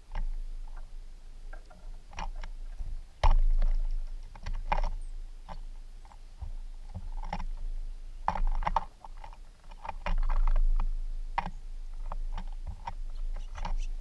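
Irregular clicks and knocks at a hanging wooden platform bird feeder, with a deep wind rumble on the microphone that swells in gusts; the loudest knock comes about three seconds in.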